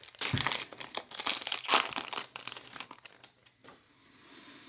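Foil trading-card pack wrapper crinkling as the cards are handled. The rustle is busy for about three seconds, then dies down to a faint hiss.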